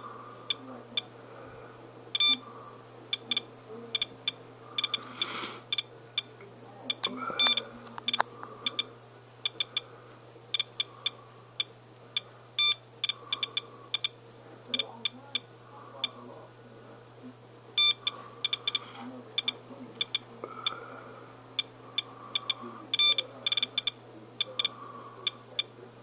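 SOEKS radiation dosimeter beeping irregularly, a short high-pitched beep for each detected particle, sometimes several in quick clusters. The fast count comes from rainwater wiped onto a paper towel reading well above background, which the owner takes for Fukushima fallout.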